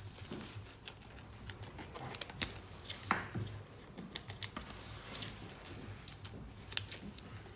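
Scissors cutting through a thermoformed plastic sheet, trimming the excess from a dental whitening tray: a run of short, sharp, irregular snips.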